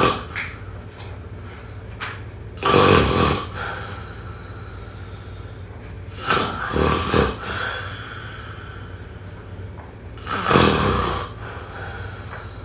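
A person snoring: three loud snores about four seconds apart, each lasting about a second, over a low steady hum.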